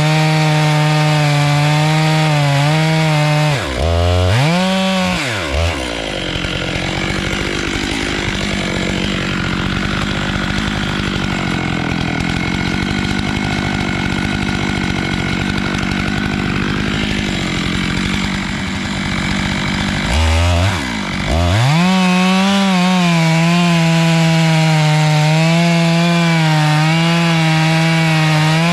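Stihl MS 881 two-stroke chainsaw on a 36-inch Alaskan mill running at high revs, dropping to a low, rough idle about five seconds in, then revved back up to a high, steady pitch about twenty-one seconds in.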